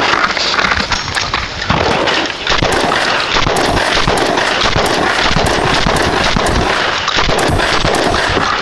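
Magazine-fed semi-automatic shotgun firing a rapid string of shots, about two a second.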